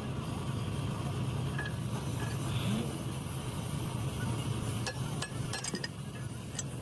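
Light metallic clinks of tools and engine parts being handled over a steady low hum, with a quick run of sharp clicks near the end.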